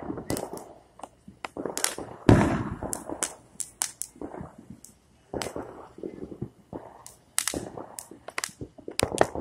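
Fireworks going off: a string of sharp cracks and bangs at uneven intervals, the loudest bang about two seconds in, followed by a rumble.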